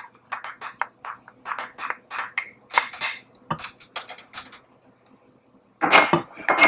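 Minced garlic going into oil in a stainless steel saucepan and being stirred with a wooden spoon: a run of small, irregular clicks and taps, then a louder clatter of the spoon against the pan near the end.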